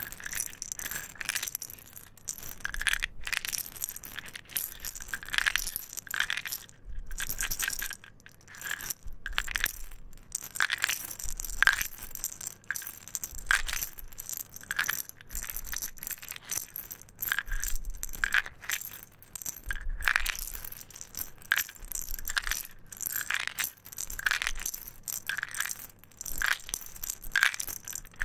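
Hard boiled sweets rattling and clinking against each other and a glass jar, in repeated bursts with short pauses between.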